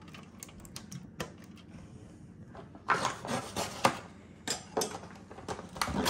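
Plastic food packaging being cut open with a knife and pulled apart, crinkling and crackling in several loud bursts from about three seconds in, after a few faint clicks.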